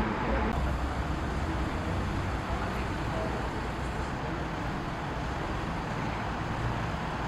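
Steady urban traffic noise with a low rumble and a faint murmur of voices underneath.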